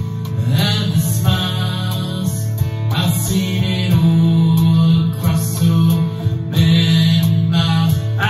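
A man singing his own slow, emotional song while playing an Ibanez electric guitar, the song built on two simple chords.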